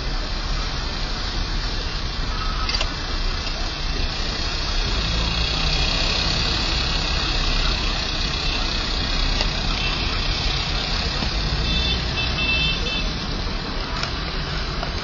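Steady car and street traffic noise, with engines running and no break, and a few brief high-pitched tones about twelve seconds in.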